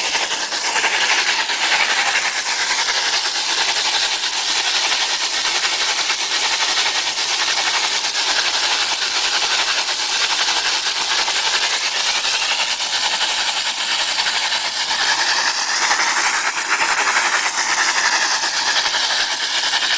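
Loud, steady hiss of gas and drilling mud jetting out of a drill pipe that has broken through the ground surface: a blowout from a directional well that went off course and came up at the surface. The hiss shifts in tone a few seconds before the end.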